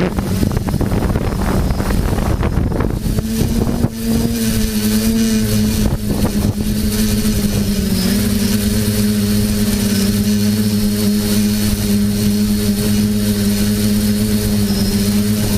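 TBS Discovery quadcopter's electric motors and propellers buzzing in flight as a steady drone. It is mixed with wind rush over the first few seconds, then settles into an even hum that wavers slightly in pitch.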